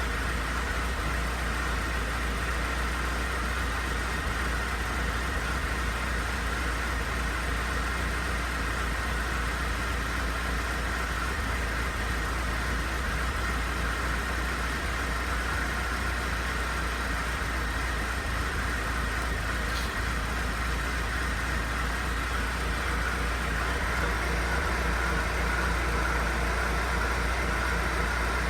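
Mercedes-Benz C200 engine idling with a steady droning whine from its secondary air pump, growing a little louder near the end. The whine is the abnormal noise: the air pump is faulty and due for replacement.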